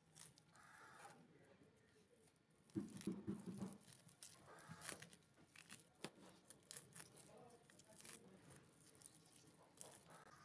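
Faint tearing and crackling as the skin and stringy fibrous pulp of a ripe palm fruit are pulled apart by hand, with scattered small clicks. A brief louder low sound comes about three seconds in.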